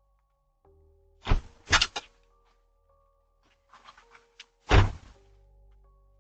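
Car doors thudding shut: two heavy thuds about a second in, a smaller one just after, a few light clicks, then the loudest thud near the end. A faint background music drone runs underneath.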